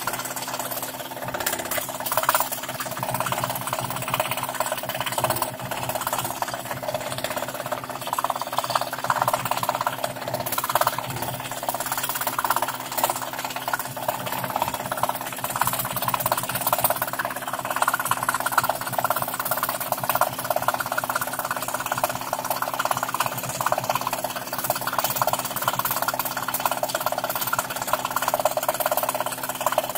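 Scroll saw running steadily, its fine blade stroking rapidly up and down as it cuts through thin plywood.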